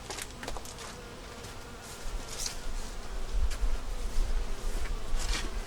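Honey bees buzzing as they fly around the entrance of an active hive, with a low rumble joining from about two seconds in.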